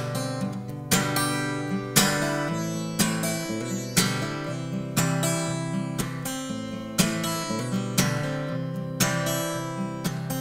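Martin steel-string acoustic guitar strummed alone in an instrumental break, with a heavy strum about once a second and lighter strums between.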